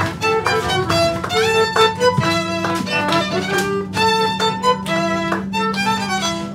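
Violin playing a melody of quick, separate notes over a steady low drone.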